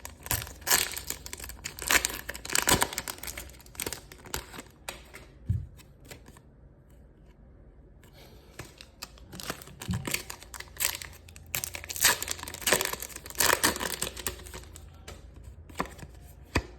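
Pokémon card packaging being handled, crinkling and tearing in irregular bursts, with a quiet pause of about two seconds midway.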